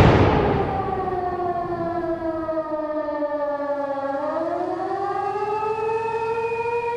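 Air-raid siren wailing: its pitch sinks slowly, then rises again about four seconds in and holds. The tail of a large explosion fades out at the start, over a low rumble.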